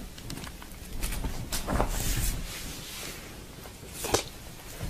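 Kitten's paws patting, scratching and landing on a cloth-covered surface as it pounces at a toy, with a couple of sharper knocks, one about a second and a half in and one near the end.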